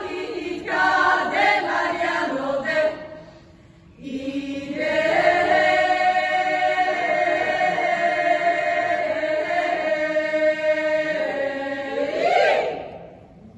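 Women's choir singing a Bulgarian folk song a cappella. After a short break about three seconds in, they hold one long chord for about eight seconds, ending in a brief upward slide.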